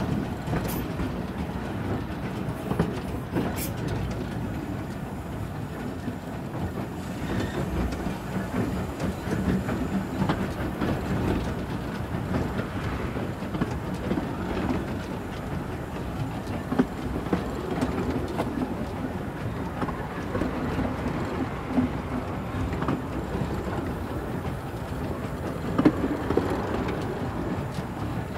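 Narrow-gauge steam train running along the track, heard from the locomotive's footplate: a steady rumble and rattle with wheels clicking over the rail joints, and a sharper knock near the end.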